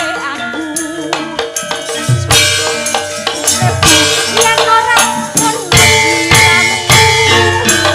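Javanese gamelan music: bonang gong-chimes and other bronze percussion struck in a steady beat, with deep beats underneath, growing louder after about two seconds.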